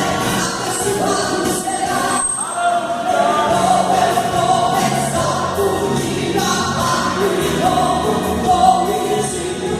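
A gospel song, sung with held, changing notes over instrumental accompaniment.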